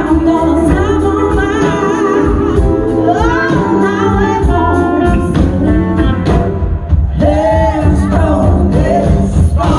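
Live band performance: several singers, a woman and men, singing together in harmony at microphones over electric bass guitar and the rest of the band.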